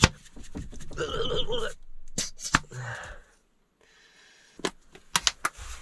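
Plastic squeeze bottle of partly frozen cooking oil squeezed out over a bowl, sputtering and wheezing twice as air forces through the nozzle with the thick oil. A sharp click at the start and a few more clicks near the end come from handling the bottle and its cap.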